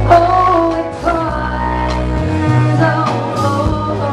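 Live band playing a song: a woman singing lead over electric guitar, keyboard and drum kit.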